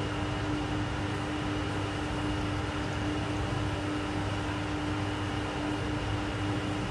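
Steady machinery hum, typical of a test tank's water pump: a constant low tone over an even hiss that does not change.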